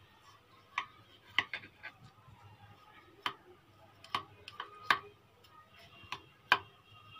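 Kitchen knife cutting set milk jelly in a glass dish. The blade clicks against the glass bottom in about a dozen irregular ticks, some with a short glassy ring.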